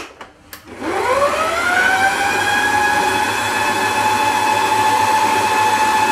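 A couple of clicks, then a Brandt stand mixer's motor starts up about a second in, its whine rising quickly in pitch and then running steadily as the dough hook turns flour in the steel bowl.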